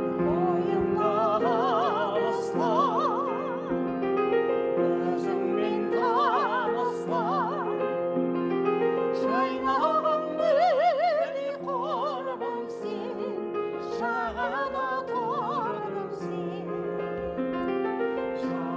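Music: a high voice singing a slow melody in operatic style with wide vibrato, over sustained chords.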